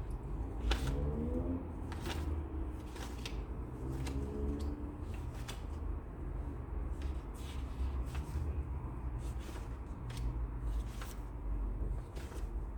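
Desk study sounds: irregular light taps and rustles of paper and stationery being handled, over a low steady hum.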